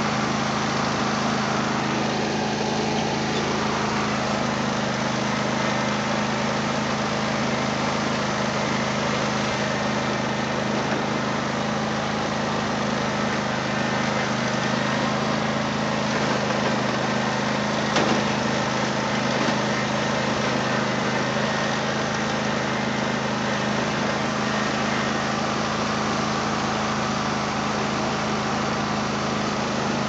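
Husqvarna riding lawn mower's engine running steadily, heard close up from the seat, with one brief knock about eighteen seconds in.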